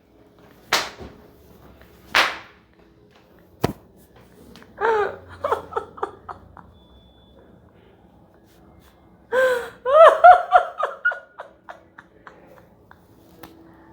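A woman breathing out hard twice, then a single sharp click, followed by two bouts of her choppy, breathless laughing.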